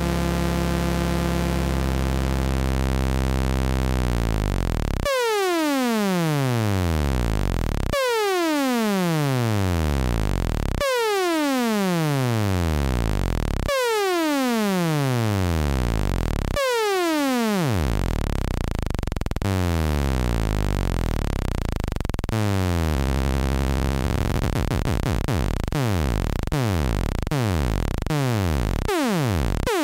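MFOS Sound Lab Mini-Synth oscillator tone with its pitch swept by the LFO. It first slides slowly downward, then falls in repeated downward swoops about every three seconds. Over the last several seconds the swoops come faster and faster as the LFO rate is turned up.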